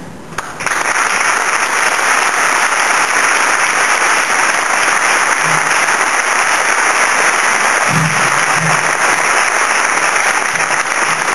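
Audience applauding steadily, starting about half a second in.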